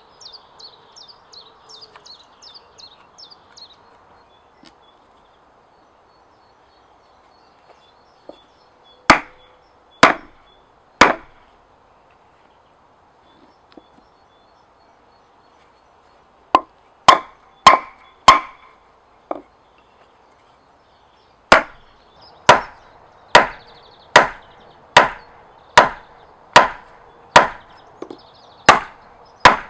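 Heavy chopping blows on wood. Three come about nine seconds in, a quick run of five follows around seventeen seconds, then a steady string of blows a little over one a second through the last eight seconds.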